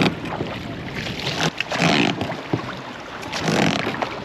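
Wooden oars pulling an inflatable dinghy through the water, a rush of water with each of three strokes about two seconds apart, over wind on the microphone.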